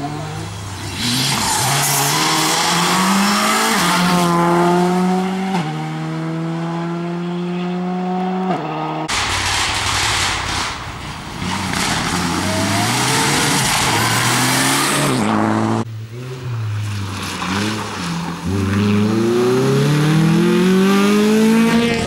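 Rally cars driven flat out past the roadside one after another, each engine revving hard and climbing through several quick upshifts. One of them is a Mitsubishi Lancer Evolution X. The sound cuts off abruptly twice as one car gives way to the next, about nine seconds in and again near sixteen seconds.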